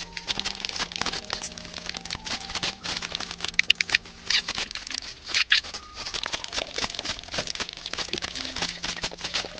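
Close-miked eating sounds: a steady run of crunching, crackling chewing and mouth clicks, with faint background music underneath.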